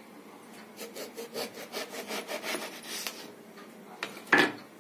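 A kitchen knife sawing through a whole brinjal (eggplant) against a cutting board: a run of short rasping strokes, about three or four a second. Near the end there is a single sharp knock, louder than the strokes.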